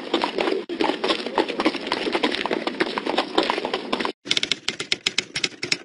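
Horse hooves galloping, a rapid clatter of hoofbeats. It breaks off briefly about four seconds in, then comes back as sparser clip-clops.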